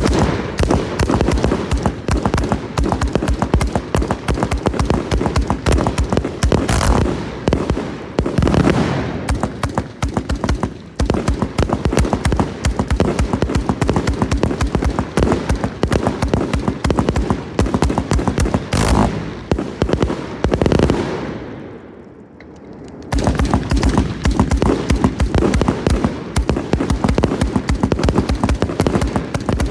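A 170-shot consumer firework cake firing a rapid, near-continuous barrage of shots. About three-quarters of the way through the firing dies away to a brief lull, then resumes at full pace.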